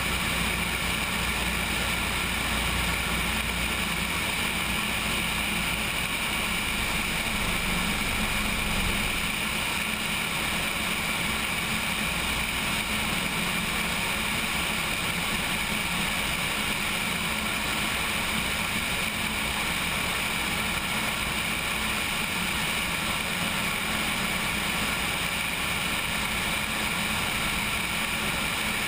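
Steady drone of a Cessna 172's engine and propeller mixed with rushing airflow over a camera mounted on the wing, with the plane on final approach.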